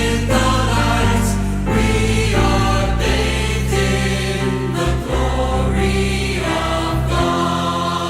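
Music: a Christian worship song, a choir singing over held bass notes.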